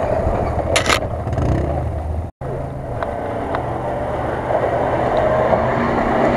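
Mitsubishi L200 pickup's engine running steadily under load as it climbs a steep muddy slope, with a short hiss about a second in. The sound drops out for a moment a little over two seconds in, then the steady engine hum resumes.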